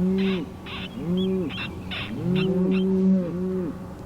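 A fast series of short hooting calls, rising then falling, about two a second and overlapping for about a second near the middle. Harsh, caw-like cries are mixed in between them.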